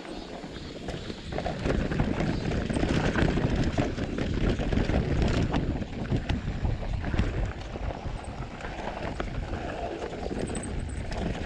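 Specialized Turbo Levo electric mountain bike descending a rough trail with steps: tyres rolling over dirt and rock, with frequent irregular knocks and rattles from the bike jolting over the bumps, over a steady rush of wind on the microphone.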